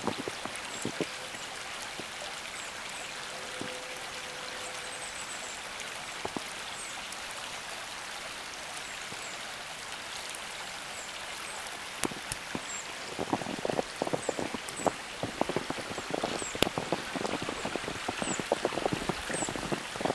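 Steady hiss of a snowstorm in a forest, then, about two-thirds of the way through, boots start crunching through snow in quick, uneven steps.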